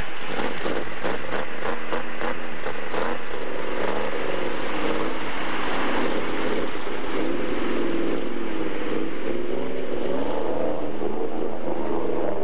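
Off-road vehicle's engine running under load and revving, its pitch rising and falling, with fast pulsing in the first few seconds.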